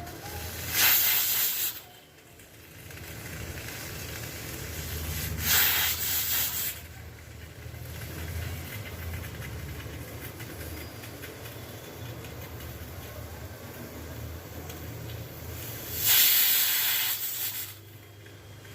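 Pressure cooker whistle venting steam in three loud hissing bursts, each about a second long, the last one longer; a low steady rumble fills the gaps between them.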